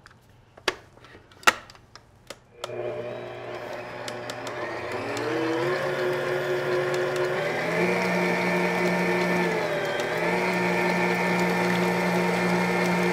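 A few sharp clicks, then a Drew Barrymore stand mixer's motor starts about two and a half seconds in and runs steadily, beating butter, sugar, eggs and vanilla with its whisk. Its whine steps up in pitch as the speed is turned up.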